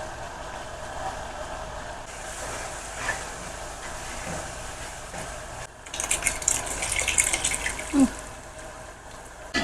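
Tomato stew cooking in a pot with a steady watery hiss; about six seconds in, a louder crackling sizzle lasts a couple of seconds.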